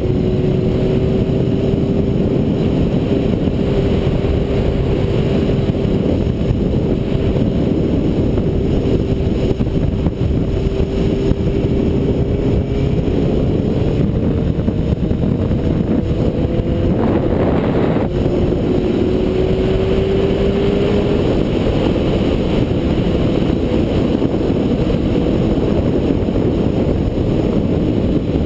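Motorcycle engine running at road speed under heavy wind and road noise, its note slowly rising as the bike gathers speed. About seventeen seconds in there is a brief rush of louder noise, and a few seconds later the engine note drops and climbs again.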